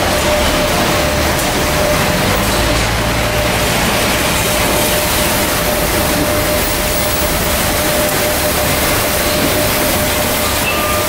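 Steady machinery noise from an automatic palletizer and its powered roller conveyors running, with a constant high whine. A brief higher tone sounds near the end.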